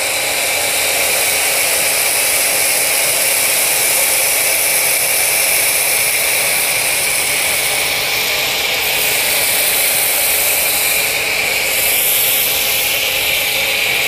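STARQ ST W4 PRO 2400 W electric pressure washer running with a foam cannon, spraying snow foam onto a car: a steady hiss of spray with a faint even motor hum beneath it.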